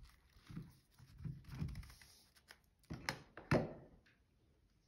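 A rice-filled sock being squeezed and handled, with faint shifting and rustling of the rice inside, then two short knocks about half a second apart, about three seconds in.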